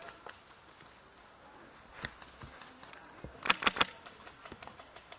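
Airsoft gun firing a quick burst of four shots about three and a half seconds in, with a single sharp click about two seconds in.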